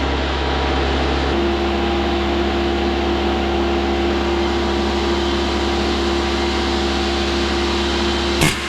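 Steady drone of a motor-driven machine with a constant hum, taking on a new tone just over a second in. A sharp metal knock, like a hammer blow, comes near the end.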